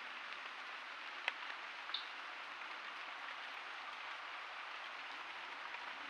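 Faint, steady night ambience heard as an even hiss, with a single sharp click a little over a second in and a brief high chirp about two seconds in.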